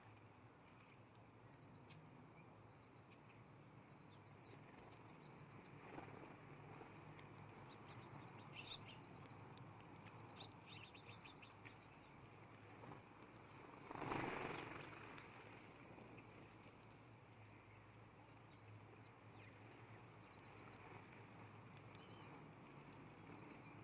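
Faint chirps from small wild birds at a feeder, scattered, with a quick run of chirps near the middle. About two-thirds of the way through, a louder rushing sound swells and fades over a second or two.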